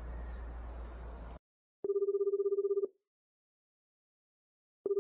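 Outdoor background noise cuts off about a second and a half in. Then a Japanese telephone ringback tone sounds twice through the phone line: a low, fluttering ring lasting about a second each time, with about two seconds of silence between. It is the line ringing at the other end while the call waits to be answered.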